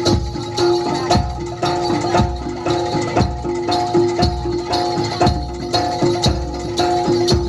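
Live traditional Javanese percussion ensemble playing: ringing metal gong-chime tones over a steady beat of about two strikes a second, with shaken jingles.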